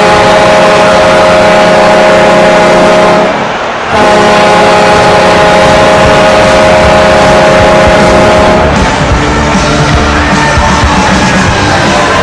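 Loud rock music with long held, distorted chords, broken by a short gap about three and a half seconds in, turning into a busier passage near nine seconds in.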